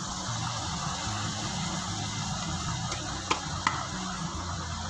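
Onion-tomato masala frying in a pan with a steady sizzle, and two sharp clicks about three and a half seconds in as ground spices are scraped off a plate into the pan.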